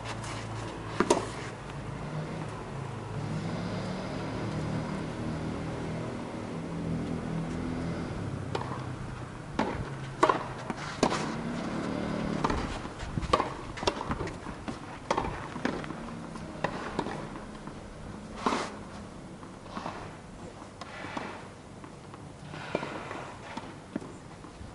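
Tennis balls struck by rackets: one sharp hit about a second in, then a run of crisp hits and bounces about a second apart from about ten seconds in, as in a rally. A low hum underlies the first half.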